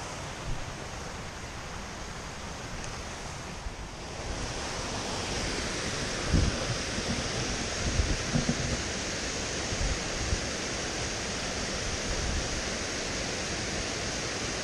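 Rushing water of a small mountain gill cascading down a rocky channel, a steady hiss that swells about four seconds in. Wind buffets the microphone in a few low bumps.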